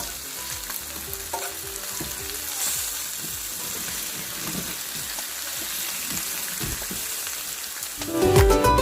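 Pork belly sizzling on a hot cauldron-lid griddle, a steady frying hiss. Music comes in near the end.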